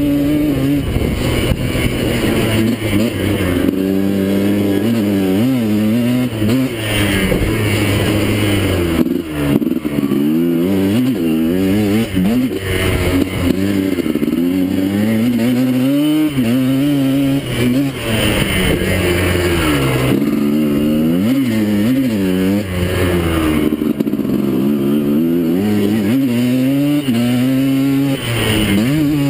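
Yamaha Blaster's two-stroke single-cylinder engine revving up and falling back over and over as the quad is ridden hard on a dirt track, the rider working the throttle and gears.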